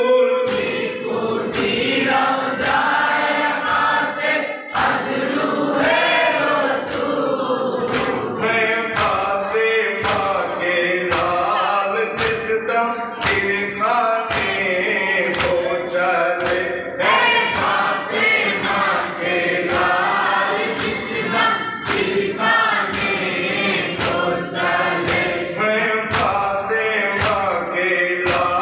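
A group of men chanting a Muharram noha (mourning lament) together, kept in time by steady rhythmic chest-beating (matam) at about three strokes every two seconds.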